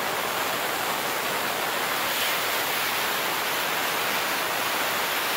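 Aerosol spray can of filler primer hissing steadily in one long, unbroken spray, held close: a light dust coat going onto a car roof.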